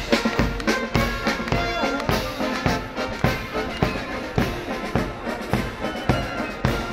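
Military brass band playing: trumpets and other brass horns over a steady drum beat.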